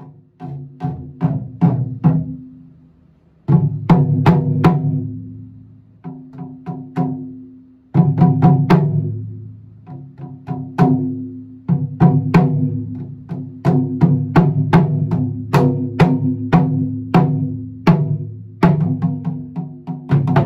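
Solo taiko drumming: wooden bachi striking a barrel-shaped nagado-daiko, a smaller drum and a tall drum in rapid rhythmic phrases, the drum heads ringing low between strokes. The playing eases briefly about three seconds in and again around seven seconds, then runs on in steady groups of hits.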